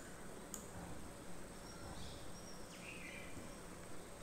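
Faint room noise: a steady low hiss, a single click about half a second in, and a few faint high chirps about two seconds in.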